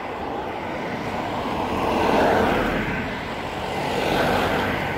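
Road traffic passing close by: a steady rush of engine and tyre noise that swells as vehicles go past, about two seconds in and again just after four seconds.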